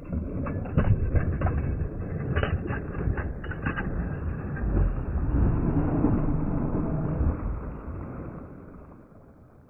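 Water splashing and churning as a released musky kicks away at the surface beside the boat. The sound is heavy in the low end, with scattered sharp splashes in the first few seconds, and it fades out over the last two seconds.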